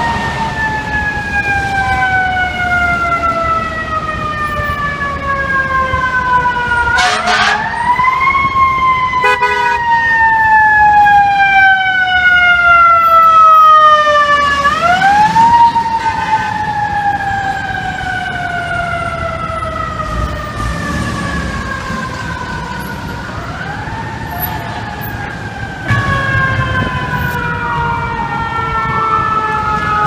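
Fire engine siren wailing as an FDNY engine passes. Each wail rises quickly, then winds down slowly over several seconds, and it is restarted three times, with traffic noise underneath. Near the end a second siren comes in with quicker rises and falls.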